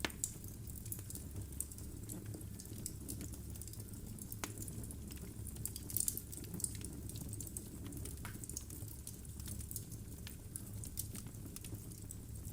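Wood fire burning in a fireplace: logs crackling with frequent small pops over a steady low rumble of flame, a brief cluster of louder pops about six seconds in.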